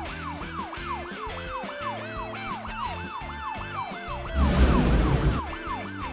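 Cartoon police car siren sound effect, a fast rising-and-falling wail repeating about three times a second, over background music. About four seconds in, a loud rushing noise cuts in for about a second.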